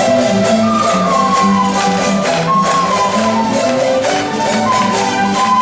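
A cavaquinho ensemble strumming a lively traditional folk tune in steady rhythm, with flutes carrying the melody over the strings.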